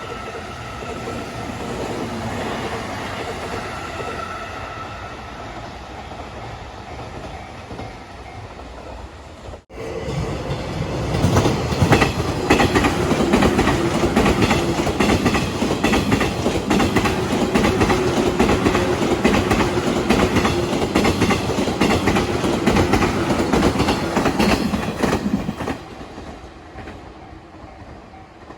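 Freight train rolling past, its wheels clattering over the rail joints in a rapid clickety-clack over a steady rumble. A quieter rumble comes first, then a sudden break about ten seconds in, after which the loud clatter runs until it eases off about two seconds before the end.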